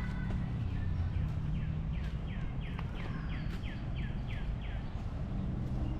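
Steady low rumble of a waterfall, with a bird calling a quick run of about ten notes that each slide downward, about three a second, in the middle.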